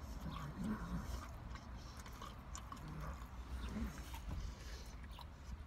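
A person chewing a mouthful of soft burger, with quiet wet mouth sounds and a few short closed-mouth hums; he takes another bite of the bun about four seconds in.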